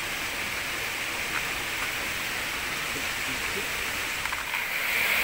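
River water rushing steadily, a hiss that grows louder near the end.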